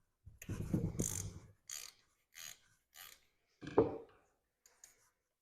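Hand ratchet clicking in several short bursts as bolts are turned out, with a sharp metallic clink a little before the end.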